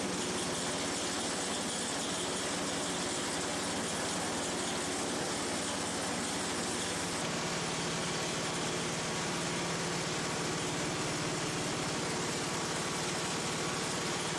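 Small gasoline engine of a band saw mill idling steadily, its tone shifting slightly about seven seconds in.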